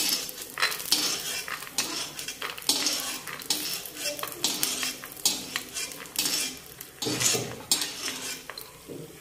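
Metal ladle scraping and clinking against a metal kadhai as roasted peanuts are scooped out and tipped onto a metal plate, in repeated short strokes, with a light sizzle of hot mustard oil underneath.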